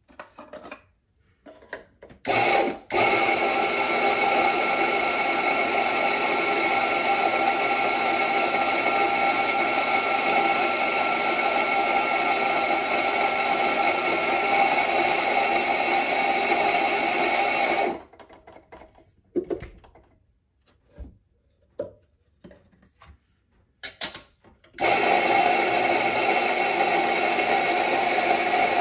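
Rancilio Rocky burr grinder's motor running as it grinds coffee beans, a steady whir that stops about 18 seconds in. A few light knocks and clicks follow, then the grinder starts again near the end.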